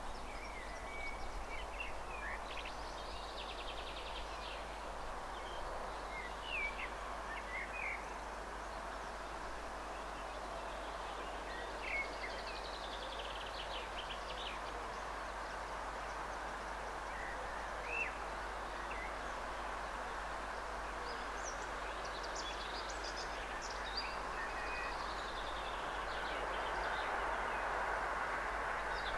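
Scattered bird chirps over a steady outdoor rumble. The rumble grows slowly louder near the end as a pair of TEP70 passenger diesel locomotives approaches from a distance.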